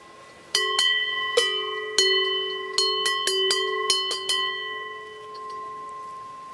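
Cowbell on a cow's collar clanging in about ten quick, irregular strokes as the cow moves its head, each stroke ringing on; the ringing fades out after the last stroke.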